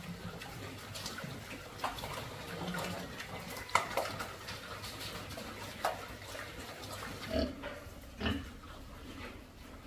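Pigs in a pen giving about six short, sharp coughs scattered through, the persistent coughing of pigs with pneumonia.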